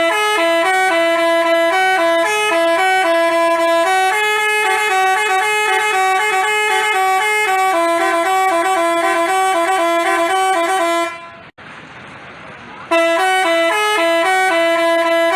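Telolet basuri bus horn playing a tune of quick stepped notes. It cuts off about eleven seconds in and starts the tune again about two seconds later.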